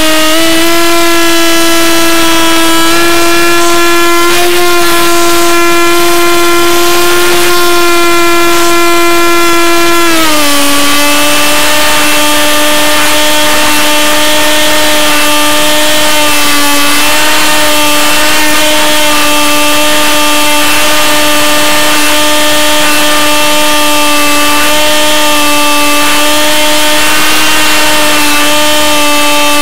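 The motor and propeller of an RC Super Cub floatplane, running steadily in flight and heard close up through the plane's onboard camera: a loud, even buzzing tone. It dips a little in pitch about ten seconds in and then holds steady.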